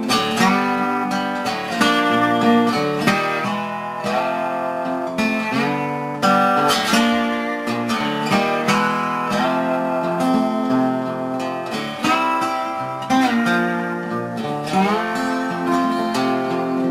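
Wood-bodied resonator guitar played slide-style and fingerpicked, an instrumental passage of plucked notes and chords whose pitches glide up and down between notes.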